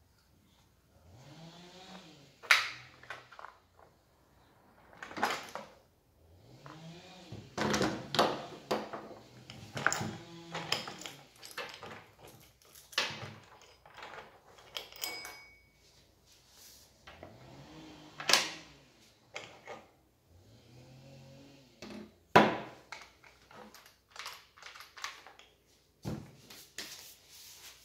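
Handling noise as the bar and chain are taken off a Husqvarna 236e chainsaw on a wooden workbench: irregular clatters and knocks of the plastic saw body and metal parts, with the saw chain clinking. A few sharp knocks stand out, about two and a half seconds in and again near eighteen and twenty-two seconds.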